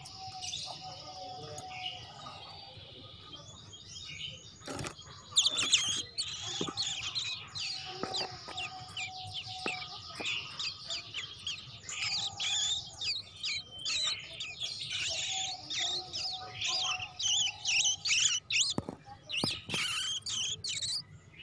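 Domestic canary singing a long song of fast trills and rapid chirps. It is fainter for the first few seconds and fuller and near-continuous from about five seconds in, with a single sharp click just before.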